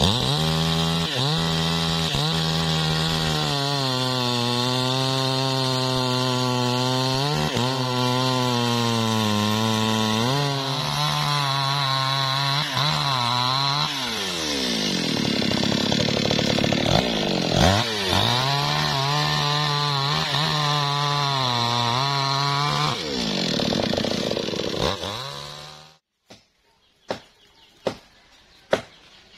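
New West 628 two-stroke chainsaw held at full throttle while cutting teak wood, its revs dipping and picking up again several times. It runs down and stops about 26 seconds in, and a few sharp knocks follow near the end.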